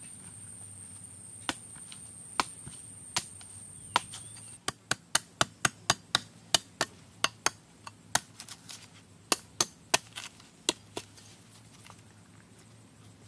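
Machete chopping into green coconuts with sharp knocks. First a few spaced strikes, then a quick run of about twenty chops, roughly three a second, that stops about two seconds before the end.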